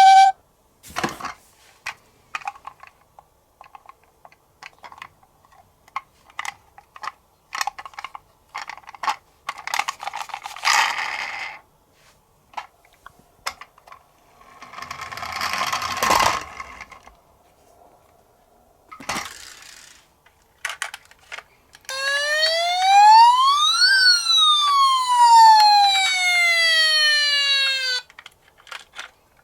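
Toy minicars clicking and clattering as they are handled and rolled, with a few short rolling rattles. Near the end a toy's electronic siren gives one loud wail, rising for about two seconds and then falling for about four.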